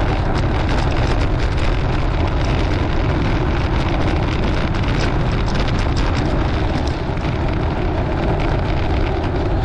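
Wind rushing over the microphone of a camera on a bicycle riding at about 20 mph on rough, broken pavement, with the bike rattling in many small clicks and knocks.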